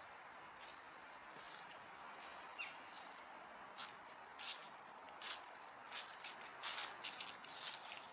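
Soft crunching footsteps on a path, starting about halfway through and coming closer together towards the end, over a faint outdoor hiss. There is one brief bird chirp early on.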